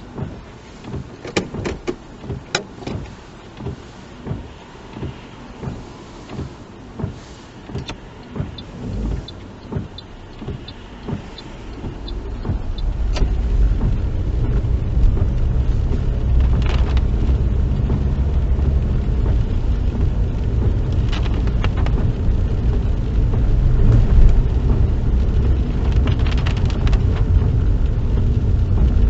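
Inside a car, a steady run of sharp ticks, a little under two a second, typical of the indicator signalling to move off. About twelve seconds in, the car pulls away and engine and road noise rise to a steady low rumble.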